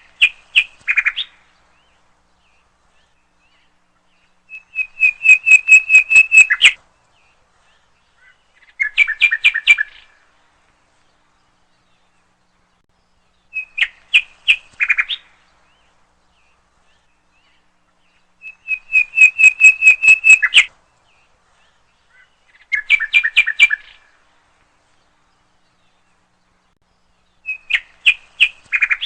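Nightingale singing: seven loud phrases of rapidly repeated notes, each one to two seconds long, separated by pauses of a few seconds.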